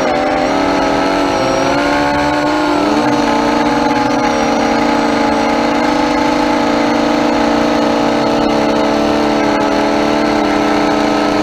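Electric motors and propellers of an Mxp230 FPV mini quadcopter, heard through its onboard GoPro, whining at several pitches at once. The pitches rise and fall with the throttle for the first few seconds, then hold steady.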